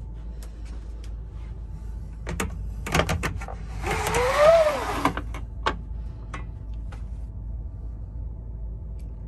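Blackout blind on a Mk3 sleeper coach window being raised: a few clicks from the handle, then about four seconds in a loud swish of the blind sliding up, with a whirring tone that rises and falls. A steady low hum sits underneath.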